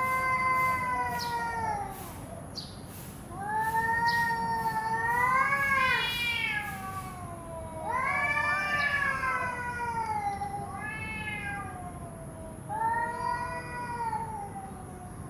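Cats caterwauling in a territorial standoff: a series of long, wavering yowls, each lasting one to three seconds, rising and falling in pitch, with short pauses between them.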